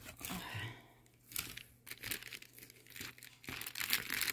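Clear plastic bag crinkling and rustling in irregular strokes as hands pull and handle it while trying to get it open. The rustling grows busier and louder near the end.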